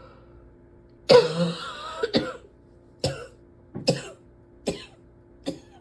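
A person in a coughing fit: one longer, rough cough about a second in, then five short, sharp coughs, about one a second.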